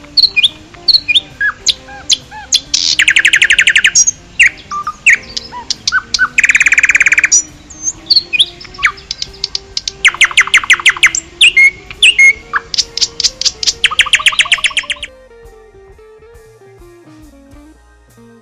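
A bird chirping, with short high calls broken by several fast trills, over soft background music. The calls stop about 15 seconds in, leaving only the music.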